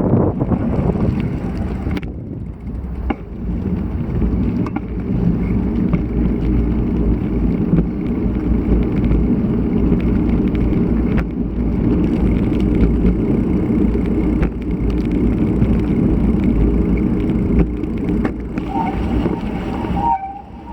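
Road bike being ridden: tyres rumble on the road and strong wind buffets the action camera's microphone, with scattered clicks and knocks from the bike. A brief high squeal sounds near the end, then the noise eases.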